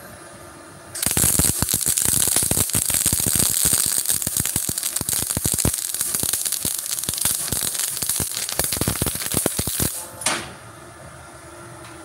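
MIG welding arc from a MultiPro MIG-MMA/TIG 160 AS-MZ inverter welder, with the welding voltage turned up. It starts about a second in, crackles steadily for about nine seconds, then stops.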